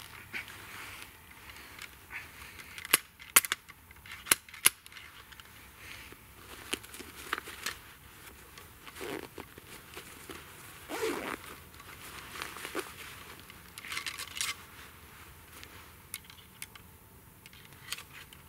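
.50-calibre percussion-cap muzzleloader being reloaded by hand: a handful of sharp metallic clicks and taps about three to five seconds in, then softer scraping and rustling of the ramrod and of clothing and a pouch being handled.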